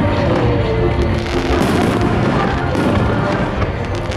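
Aerial fireworks shells bursting in the sky, several sharp bangs among continuous crackle and rumble, with music playing along with the show.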